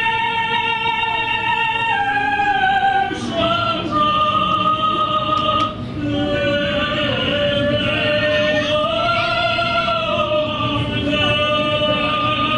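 Music with singing: long, held sung notes that step from one pitch to another.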